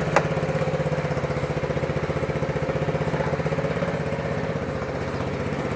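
Small engine idling steadily with an even, rapid beat.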